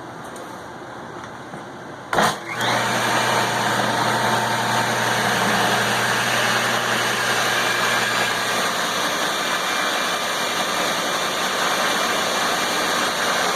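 Table saw switched on about two seconds in, its motor and blade spinning up quickly and then running steadily with a low hum.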